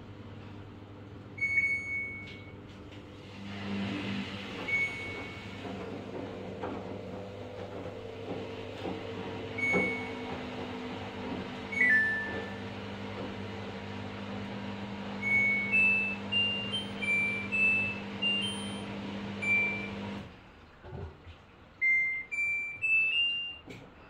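Samsung front-loading washer: control-panel beeps while the child lock is on, single beeps at first, then a falling two-note beep, then short rising runs of beeps near the end. Under them the machine's steady running hum starts a few seconds in and stops abruptly a few seconds before the end.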